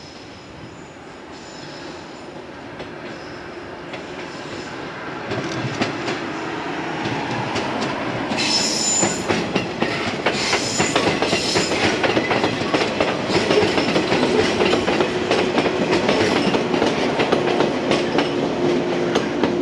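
JR West 115 series electric train approaching and passing close by, growing steadily louder for about eight seconds and then staying loud, its wheels clacking over the rail joints. High wheel squeals come briefly about eight to eleven seconds in, and a steady hum holds near the end.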